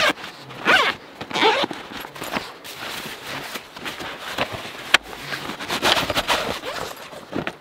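Gear being handled: a sharp knock, squeaky rubbing and scraping about a second in, scattered scrapes and footsteps, then another sharp knock about five seconds in.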